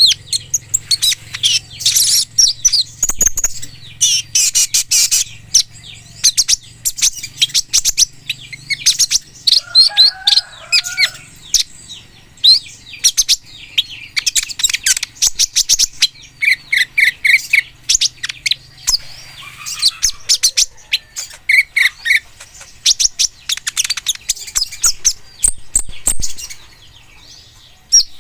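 Kolibri ninja sunbird singing: rapid, high-pitched chirps and twitters in quick runs, with short buzzy trills around the middle. A faint low hum lies under the first two thirds.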